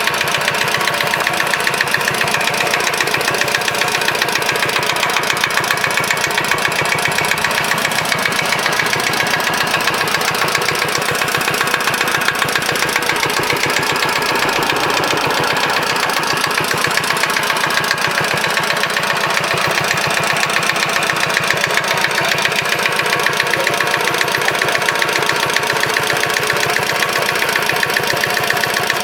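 Yanmar HA4 diesel engine running steadily at a constant speed, with a fast, even knock of firing strokes.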